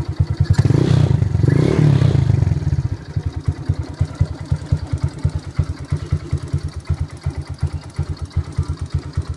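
2008 Suzuki Shogun Pro 125's single-cylinder engine through a DBS carbon fibre race pipe, blipped loudly twice from about half a second in to about two and a half seconds, then settling back to a steady, evenly pulsing idle.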